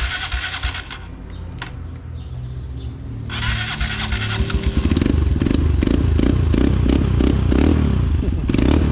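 Honda motorcycle starter cranking briefly, then cranking again about three seconds in, until the engine catches at about five seconds and keeps running. The kill switch, which had been stopping it from starting, is now set to run.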